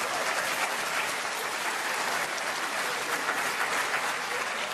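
Theatre audience applauding: steady, dense clapping from a large crowd.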